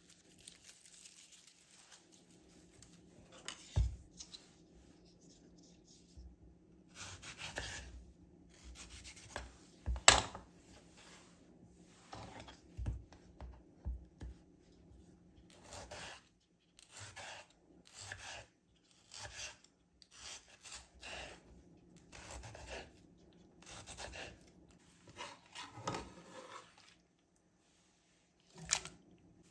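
Serrated knife sawing through a tomato on a wooden cutting board: a series of short rasping strokes, with a few sharp knocks on the board, the loudest about ten seconds in.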